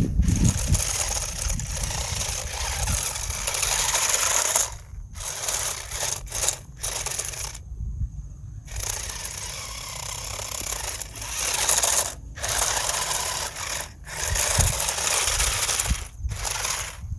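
Toy RC car driving, its small electric motor running and its wheels scraping and rattling over the ground. It stops and starts again several times, with a longer pause a little before the middle.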